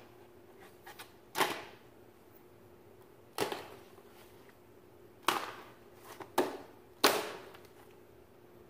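About five sharp clicks or knocks, irregularly spaced over several seconds, each with a short ringing tail, over a faint steady hum.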